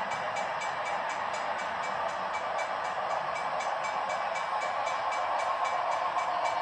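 Model steam locomotive and freight cars running along the layout's track: a steady rushing running noise that grows a little louder as the train approaches.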